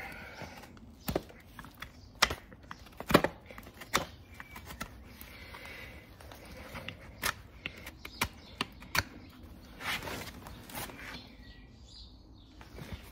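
Farrier's hoof knife paring the sole of a hard, dry horse hoof: sharp, irregular clicks and cracks as the strokes cut, about a dozen in all, thinning out near the end.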